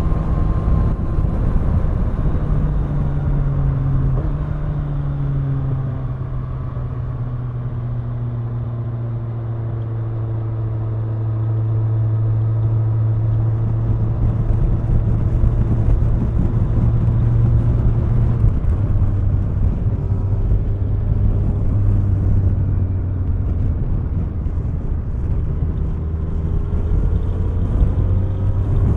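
Kawasaki Ninja 1000's inline-four engine running under way at road speed, its note shifting with the throttle: it steps a few seconds in, holds steady for a long stretch, drops suddenly about two-thirds of the way through, then climbs again near the end, with road and wind noise underneath.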